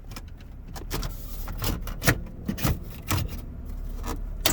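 Plastic dash trim panel of a Buick Regal being worked loose by hand, with irregular clicks, creaks and knocks as it flexes against its clips.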